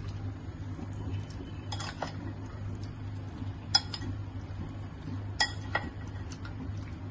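Metal spoon stirring raw chicken in a thick yogurt marinade in a glass bowl, striking the glass several times with sharp, ringing clinks. A steady low hum runs underneath.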